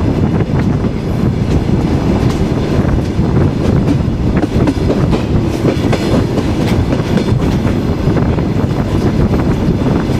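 Passenger railway carriage running along the track: a steady, loud rumble of the wheels on the rails, broken by irregular clicks.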